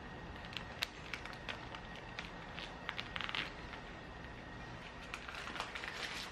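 Faint, scattered crinkles and taps of a paper flour bag being handled and grabbed at, with a short run of crinkling about three seconds in.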